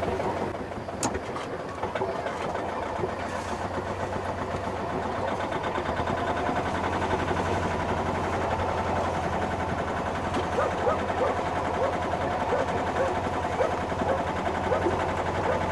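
A small sailboat's engine running steadily at low revs while motoring in slowly to drop anchor again.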